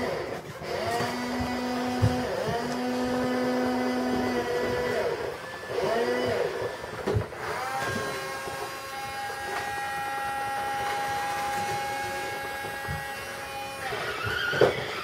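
Small electric motors of radio-controlled toy construction machines whining, rising and falling in pitch as they start and stop in short runs, then holding one longer steady run in the second half. There are a couple of sharp clicks along the way.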